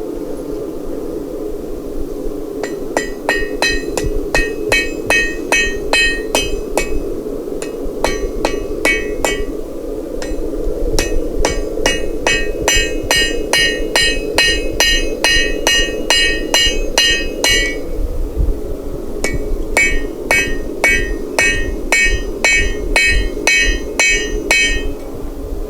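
Blacksmith's hammer striking hot steel on an anvil while shaping a leaf, in four runs of about three blows a second, each blow with a bright metallic ring. A steady low rushing noise runs underneath.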